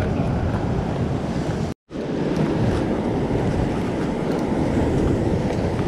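Ocean surf washing against a rock ledge, mixed with wind buffeting the microphone. The sound cuts out completely for a moment just under two seconds in.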